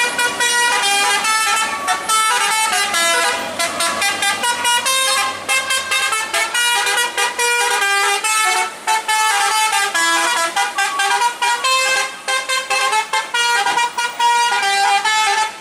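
A vehicle's multi-tone musical horn playing a quick tune, its notes changing several times a second. A low engine hum sits beneath it through the first half.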